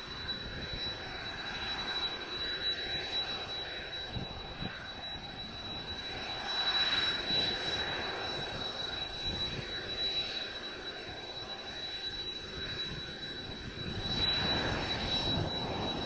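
Kawasaki T-4 jet trainer's twin F3 turbofan engines running at taxi power, a steady high whine over a broad rush. The sound swells about seven seconds in and again near the end as the aircraft turns past.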